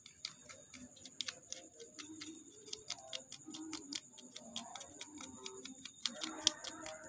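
Quick, irregular small clicks and ticks, several a second, from hands working at a car's hood latch mechanism, with a faint steady high whine underneath.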